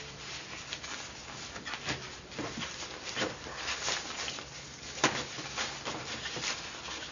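Thin polyester travel prayer mat rustling and crinkling in quick, irregular strokes as it is unfolded and spread flat by hand, with one sharper click about five seconds in.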